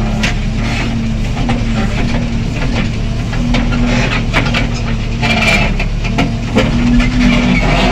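JCB 3DX backhoe loader's diesel engine running steadily as the backhoe arm is worked, its hum wavering slightly in pitch under hydraulic load. Scattered knocks and rattles from the machine punctuate it.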